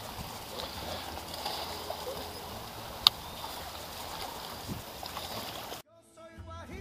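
Open-water ambience on a small fishing boat: a steady wash of wind and water noise over a low hum, with one sharp click about three seconds in. Near the end the sound cuts off abruptly and music begins.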